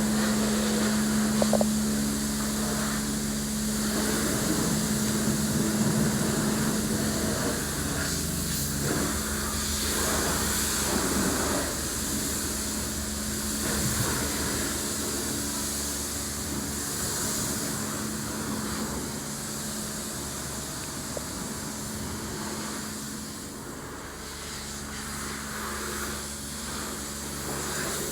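High-pressure water spraying from a self-service car wash wand, a steady hiss with a constant low hum beneath it and a few light knocks.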